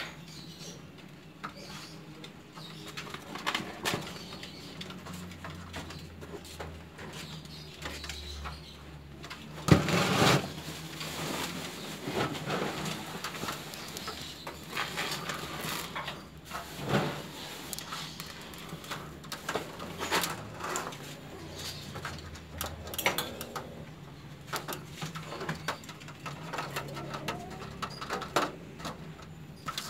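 Persian kittens playing right at the phone: scattered knocks and scuffs as they paw and bump it, the loudest knock just under ten seconds in, with short soft high calls between.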